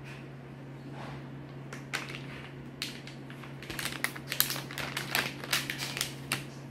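Kitchen items being handled: a couple of sharp clicks, then a quick run of clicks and rattles lasting a few seconds, over a steady low hum.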